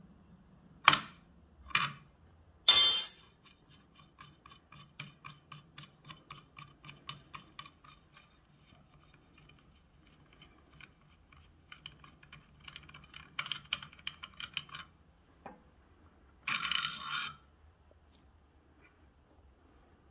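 Metal clanks of steel tools and parts handled on a threaded-rod piston pin bushing press, then a hand ratchet clicking in runs of quick ticks as the nut on the press screw is turned. A short scrape about three quarters of the way through.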